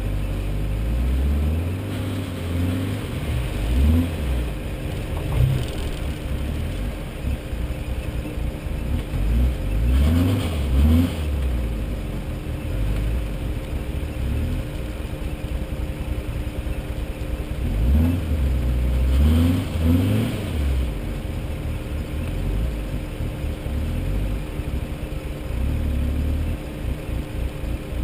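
Off-road 4WD's engine running at low revs while crawling over rocks, revving up in several short bursts, strongest about ten and twenty seconds in.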